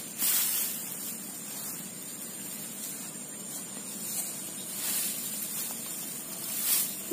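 Steady rushing hiss of flowing river water, with a few brief louder surges.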